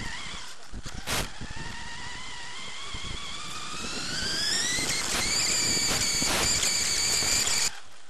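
Radio-controlled off-road buggy accelerating, heard from on board: a whine from its motor and drivetrain rising steadily in pitch for about four seconds, then holding high. A few knocks sound early on, and the whine cuts off suddenly near the end.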